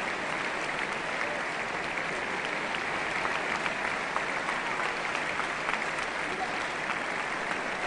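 Large concert audience applauding steadily, the clapping of many hands merging into an even wash.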